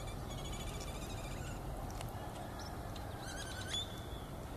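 Distant animal calls, high and wavering, with a louder call a little over three seconds in, over a steady low rumble.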